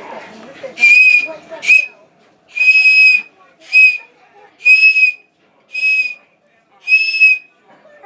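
A toddler blowing a Thomas the Tank Engine toy whistle: seven high-pitched single-note toots of uneven length, long and short in turn, about one a second.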